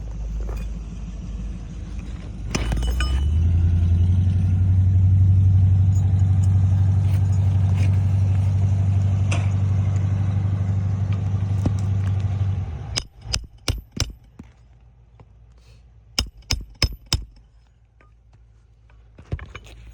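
Hammer nailing roof shingles: two quick runs of about four sharp blows each, then a single blow near the end. Before them a loud, steady low rumble holds for most of the first two-thirds and then cuts off suddenly.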